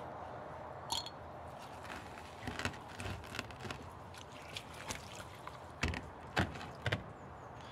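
Knocks and scrapes of a frozen water-balloon ice shell being handled and turned on a table top, irregular at first, with three louder knocks near the end.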